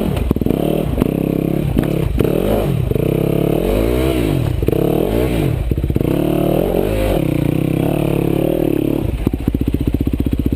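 Trail motorcycle engine revving up and down again and again under hard throttle, with a few knocks and clatters. About nine seconds in it settles into a steady, even run.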